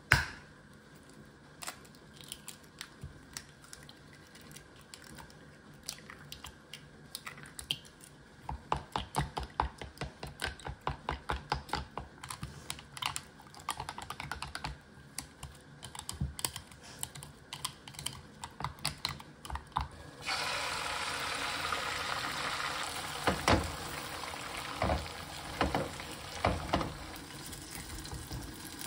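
Kitchen work sounds: scattered light clicks and knocks, with a quick run of even taps about a third of the way in. About two-thirds of the way through, a steady hissing rush sets in, with a few knocks over it.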